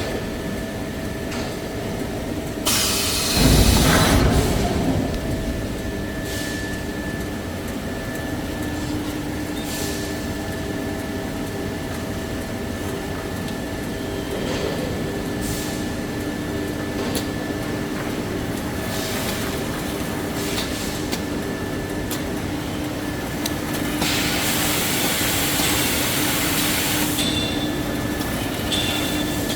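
Toilet tissue paper converting machinery running steadily, with a constant hum. A loud rushing burst comes about three seconds in, and a few seconds of hissing come near the end.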